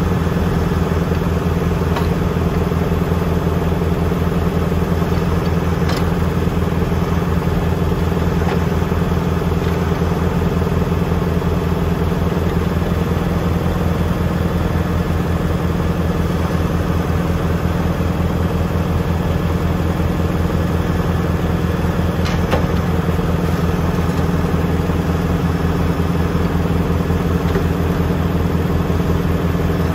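Tractor diesel engine running steadily at a constant speed, with a fast even pulsing throb and a few light clicks.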